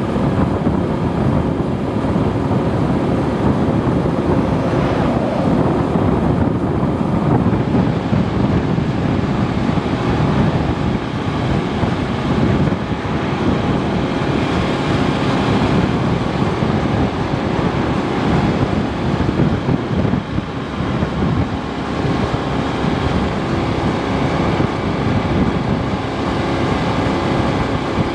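Daelim Citi 100 small motorcycle being ridden, its engine running steadily under heavy wind noise on the microphone.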